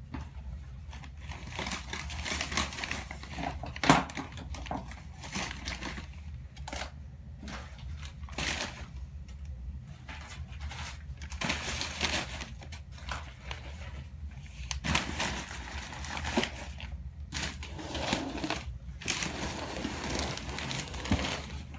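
Packing material rustling and crinkling in irregular handling bursts as wrapped orchid plants are taken out of a shipping box, with one sharp knock about four seconds in.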